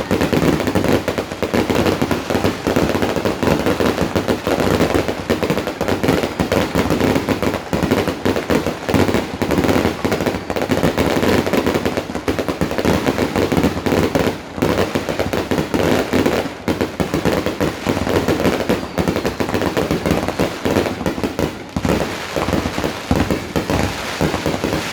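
Fireworks going off in a dense, continuous barrage: bangs and crackling follow one another without a break.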